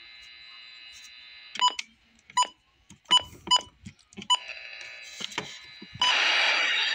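Weather radio giving five short electronic beeps in about three seconds over a faint steady hiss; about six seconds in, a loud steady hiss of radio static cuts in.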